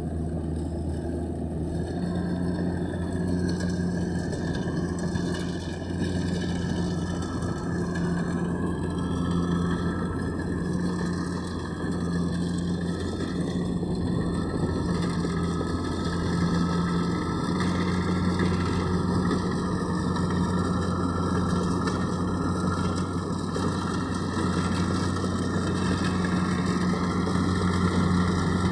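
Kubota DC-70 combine harvester's diesel engine running steadily, a constant low drone with machinery noise over it.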